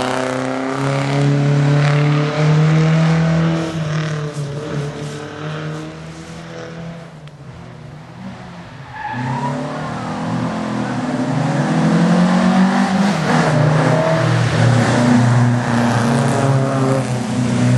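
Historic rally car engines revving hard, the pitch rising and falling with gear changes. The first car fades away about six to seven seconds in, and another starts revving up about nine seconds in.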